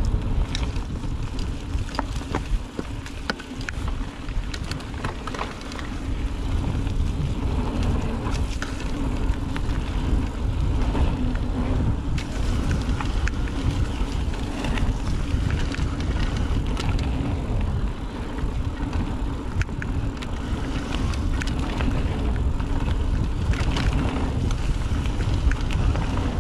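Mountain bike riding fast downhill on a dirt trail: a steady rumble of tyres and rushing wind on the microphone, with frequent sharp clicks and rattles from the bike over bumps.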